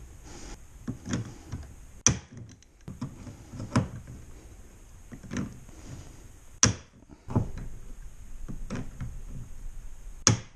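Hand pop-rivet tool squeezed through a kayak's plastic hull: four sharp snaps as rivets set, with smaller clicks of the tool and handling noise between.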